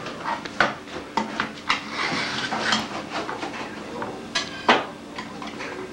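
Plates and cutlery clinking and clattering in irregular sharp knocks while sandwiches are made, with a short stretch of scraping about two seconds in.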